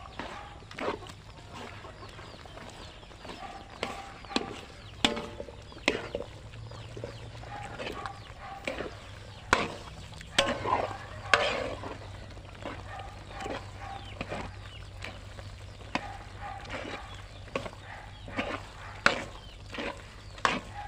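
A metal ladle stirring and scraping thick grated cassava in a metal pan, with irregular knocks of the ladle against the pan. Chickens cluck now and then in the background.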